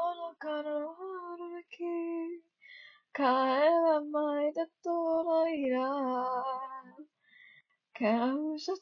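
A woman singing on her own, without accompaniment, in short phrases with held notes that slide up in pitch at their starts and brief pauses between them.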